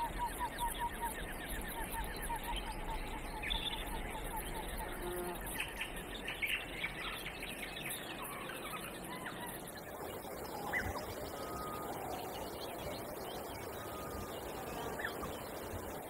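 Birds chirping and calling over a steady natural background: a fast run of repeated notes in the first few seconds, then scattered short whistles and chirps.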